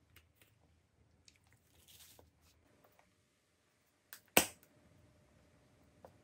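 Close-miked eating sounds: faint soft mouth clicks and a brief rustle, then one sharp, loud crack a little over four seconds in as the plastic shell of a Pokéball-shaped jelly candy is bitten open.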